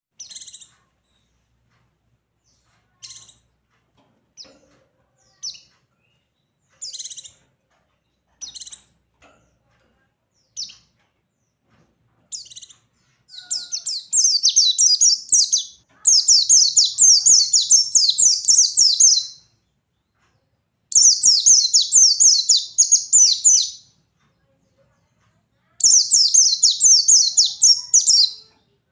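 White-eye (pleci) calling with short, high single chirps every second or two. About halfway in it breaks into long, rapid, high twittering song phrases of a few seconds each: the bird in full, vigorous song.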